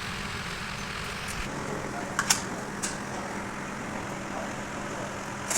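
A steady low mechanical hum under a noise haze, with a few light clicks a little over two seconds in.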